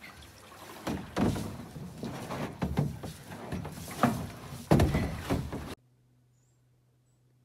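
A plastic kayak being heaved up and hauled, with rough scraping and several dull thumps. This cuts off suddenly about three-quarters of the way through, leaving only a faint steady low hum.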